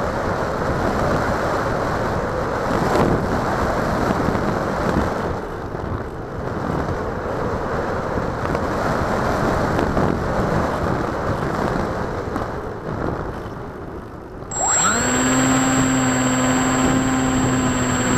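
Wind rushing over the onboard microphone of an FPV model plane in flight with the motor quiet. About fifteen seconds in, the plane's motor and propeller spool up quickly into a steady whine with several tones.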